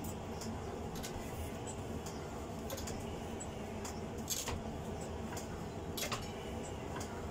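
Fly press with a drawing die pressing a hot layered steel billet: a handful of sharp metallic clicks and knocks at irregular intervals, over a steady low rumble.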